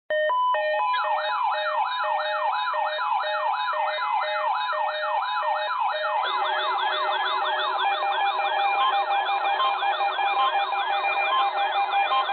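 Layered electronic warning siren tones: rapid rising-and-falling sweeps repeat about twice a second over several steady and on-off alarm tones. About six seconds in, a second, faster-sweeping pattern and a low steady tone join.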